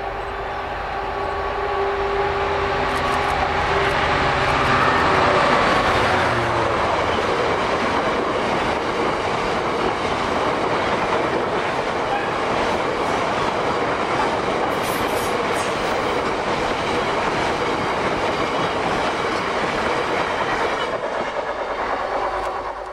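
GBRf Class 66 diesel locomotive, with its two-stroke EMD V12 engine, approaches and passes under power with its engine note loudest about five seconds in. A long train of tank wagons then rolls past with a steady clatter of wheels on the rails.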